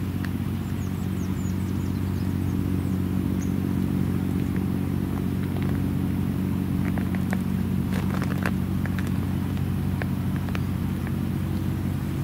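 A motor running steadily with a low, even hum, with a few faint short chirps and ticks around the middle.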